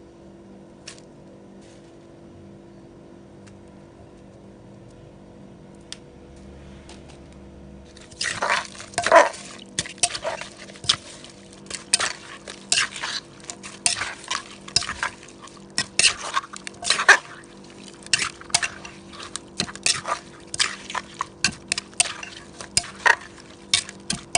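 Low room hum for about eight seconds, then irregular wet clattering and clinking of mixed seafood papaya salad (som tam) being tossed together with its dressing, several knocks a second.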